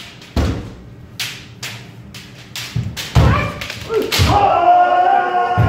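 Kendo sparring: a series of sharp cracks and thuds from bamboo shinai strikes and stamping footwork, the loudest a little past halfway. A long, held kiai shout starts about a second before the end.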